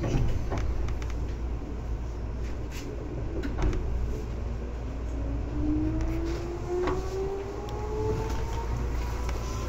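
Seibu 2000 series electric commuter train running, heard from inside the car: a steady low rumble with sharp clicks from the wheels and rails. About halfway through, a motor whine starts and climbs steadily in pitch as the train picks up speed.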